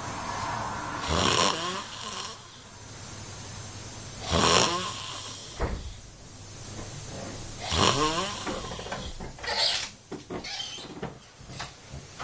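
A drunk man snoring loudly with a nose band on: three long, rattling snores about three seconds apart, each rising in pitch, then several shorter, quieter sounds near the end.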